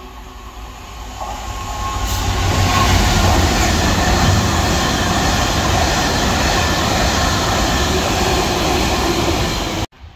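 Freight train of ballast hopper wagons passing through a station at speed: a rumble that builds over the first two seconds, then steady loud wheel and wagon noise that cuts off suddenly near the end.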